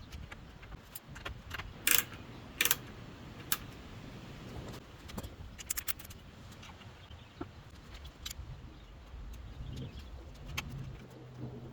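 Metal hardware and hand tools clinking and tapping while wicker patio furniture is assembled: irregular light clicks, with two loud sharp clinks about two and nearly three seconds in. A faint low hum comes in near the end.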